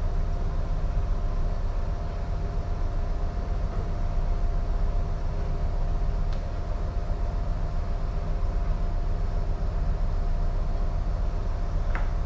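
Steady low rumble with a constant hum from a container ship's machinery, and two short clicks, one about six seconds in and one near the end.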